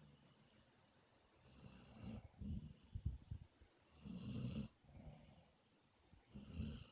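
A sleeping person snoring: about three rough, rattling snores, roughly two seconds apart, with quieter breathing between them.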